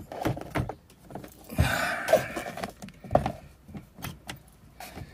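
Plastic catches and curtain runners clicking and rattling in a motorhome's aluminium window track, with a longer sliding rustle about one and a half seconds in as the curtain is pushed back along the rail.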